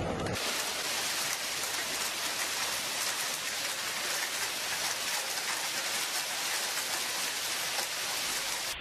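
Heavy hail mixed with rain pelting a paved street and the ground around it: a dense, steady hiss of countless small impacts, starting abruptly a fraction of a second in.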